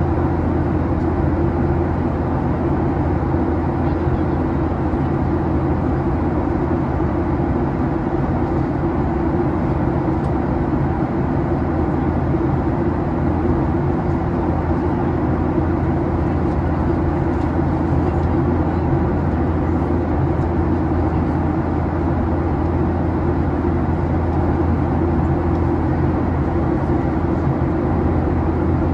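Steady cabin drone inside a Boeing 737-800 with its CFM56-7B engines running: a loud low hum that holds an even pitch with no spool-up or change.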